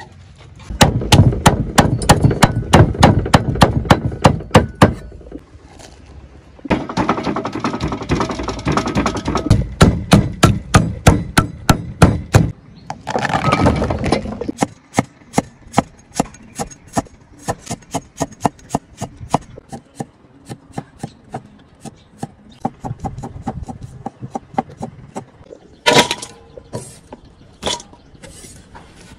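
Knife slicing garlic cloves on a thick wooden chopping block: quick, even knocks of the blade on the wood, several a second, in runs with short pauses, softer in the second half.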